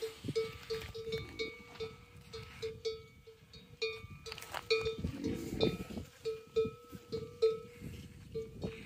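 A small metal bell on a camel clanking unevenly, about three strikes a second, as the animals move during mating. About five seconds in, a louder low gurgling rumble fits the rutting male dromedary, whose dulla is out.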